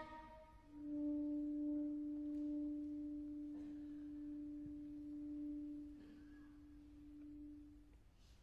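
Soprano saxophone holding one very soft, almost pure low note. It enters just under a second in, slowly fades, and stops near the end.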